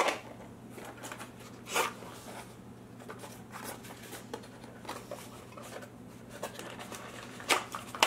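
Cardboard CPU packaging being handled: the stock cooler's small box lifted out and turned in the hands, giving soft rustles and a few sharp taps and clicks, over a steady low hum.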